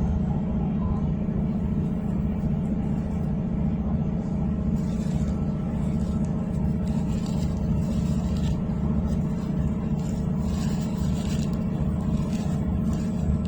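Steady low rumble of a moving train heard from inside the carriage, with faint hiss coming and going every couple of seconds.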